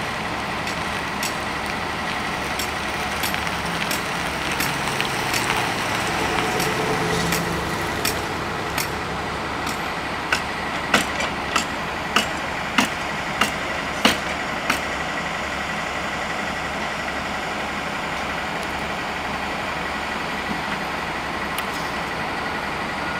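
Hammer blows on the wooden concrete forms, a run of about eight sharp knocks roughly half a second apart, with scattered single knocks before and after. Steady engine noise from site machinery runs underneath.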